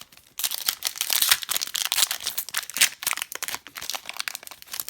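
Plastic wrapper of a hockey trading-card pack crinkling and tearing as it is opened by hand: a dense run of rapid crackles starting about half a second in.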